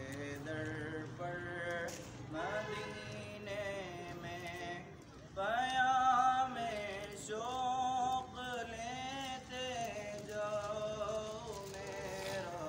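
A single voice singing a slow melody in long held, wavering notes, in phrases with short breaks; the loudest phrase starts about halfway through.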